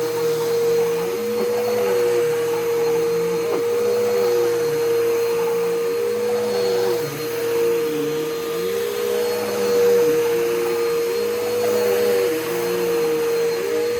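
Bissell PowerForce Bagless Turbo 6585 upright vacuum cleaner running steadily, its motor giving a constant whine. Lower tones under the whine dip and rise about every second or two.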